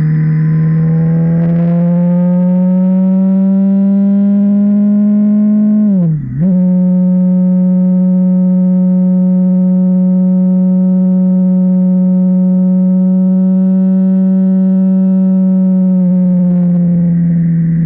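Honda CB650R's inline-four engine under way. Its steady hum rises slowly in pitch for about six seconds as it accelerates, dips sharply for a moment, then holds at an even pitch while cruising and sinks slightly near the end. A rush of wind comes in at the start and end.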